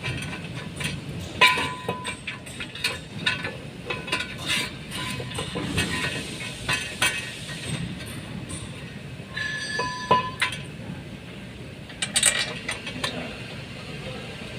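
Metal tools and brake parts clinking and knocking at irregular intervals during disc-brake reassembly, with a brief ringing metallic tone about ten seconds in.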